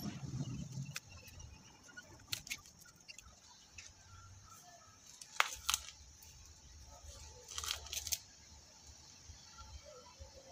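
A few short, sharp clicks and snaps from hands working on a potted bonsai: two about a third of a second apart in the middle and a quick run of three near the end. They sit over a faint, steady high hiss.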